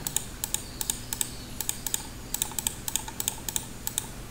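Computer keyboard and mouse clicking: irregular quick clicks, several a second, some in tight clusters, over a faint steady low hum.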